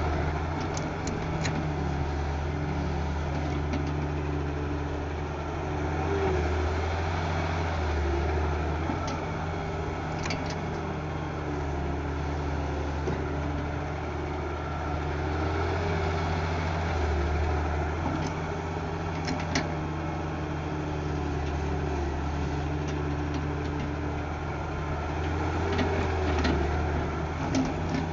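Doosan 140 excavator's diesel engine running steadily, its hum rising and falling slightly as the machine is worked, with a few short clicks and knocks.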